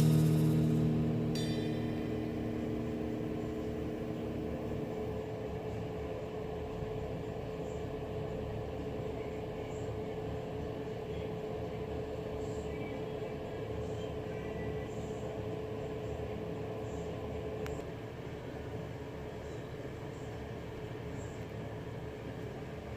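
Panasonic NA-F70S7 automatic washing machine running its Tub Hygiene cleaning cycle: a steady mechanical rumble with a constant hum, the hum stopping about 18 seconds in and the running noise going on slightly quieter.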